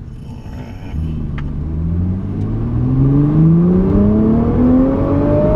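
Nissan GT-R's 3.8-litre twin-turbo V6 at full throttle in a rolling launch. About a second in it suddenly gets louder, then the engine note climbs steadily in pitch as it pulls hard through one gear, heard from inside the cabin.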